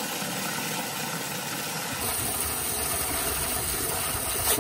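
Water running full flow from an outdoor hose bib straight into a plastic 5-gallon bucket, a steady rush that grows fuller about two seconds in as the bucket fills, at about 9 gallons per minute unrestricted by hose or sprayer. It cuts off sharply at the very end as the water is shut off.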